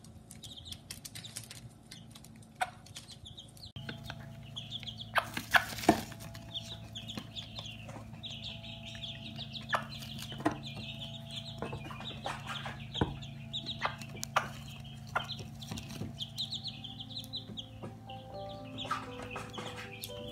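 Chicks peeping rapidly and continually beside a hen, with scattered sharp taps of pecking and scratching. The peeping thickens after a cut about four seconds in.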